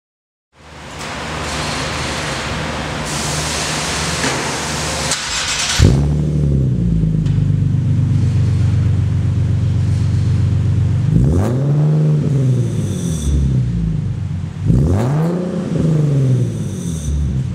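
Nissan 370Z's 3.7-litre V6 through Fast Intentions resonated test pipes and catback exhaust: running with a hiss over it for the first five seconds, a sharp throttle blip about six seconds in, then a steady idle. Twice more the revs rise and fall back, with a third rev starting near the end.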